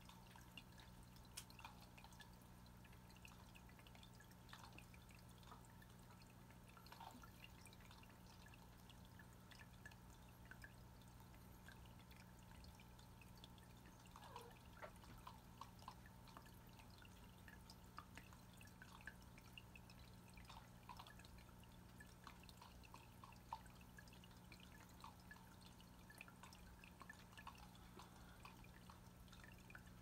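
Faint dripping and plinking of water from a pet drinking fountain as a cat paws at the flowing water, over a low steady hum.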